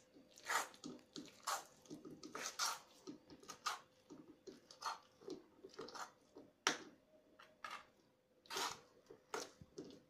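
Fingers kneading and squeezing a thick, wet herbal henna paste in an iron bowl, in irregular wet squelches and squishes, about a dozen of them.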